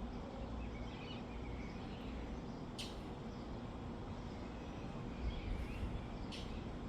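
Outdoor background: a steady low rumble with faint bird chirps, and two short high hisses about three and a half seconds apart.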